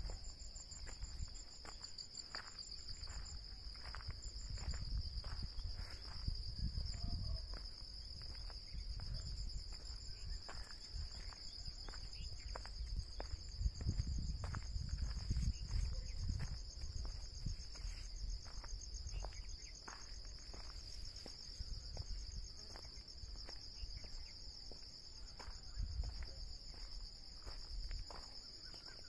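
Steady high-pitched insect chorus, a continuous fine trill, over a low rumble that swells and fades, loudest around the middle. Scattered faint ticks run through it.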